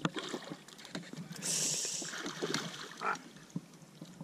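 A hooked smallmouth bass thrashing at the surface beside a boat, with a loud burst of splashing about a second and a half in.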